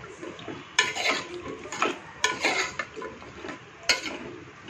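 A spoon stirring diced papaya and potato in an aluminium pressure cooker pot: irregular scrapes, with a handful of sharp clinks as the spoon knocks against the pot's side.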